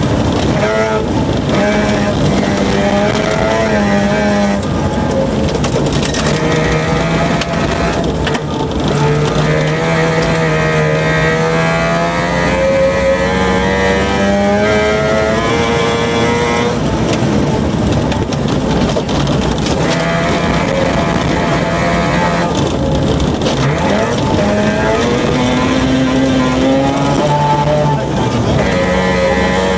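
Mazda RX2 rally car's rotary engine driven hard on a gravel stage, its pitch climbing and dropping back again and again as it goes through the gears, over a steady rush of tyre and gravel noise.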